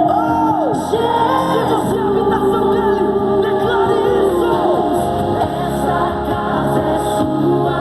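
Music with several voices singing over a steady accompaniment, with long held notes that slide in pitch. The track is raised about seven semitones and sped up.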